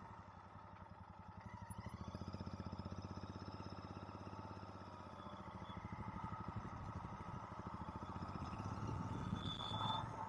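Royal Enfield Interceptor 650's parallel-twin engine running at low revs, its exhaust pulses growing louder about two seconds in and again in the second half as the bike picks up.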